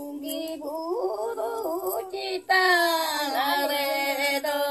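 A high voice singing unaccompanied, in long held notes that bend and glide. A louder sung phrase begins about two and a half seconds in.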